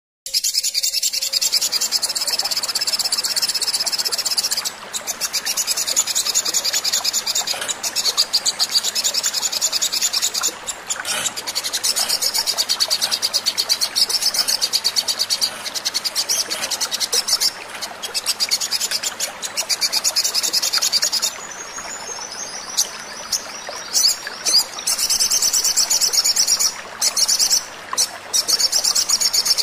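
Olive-backed sunbird song played as a lure call: a continuous, high-pitched, very rapid trill, broken by a few short pauses and quieter for a few seconds about three quarters through. It is playback meant to set captive sunbirds singing.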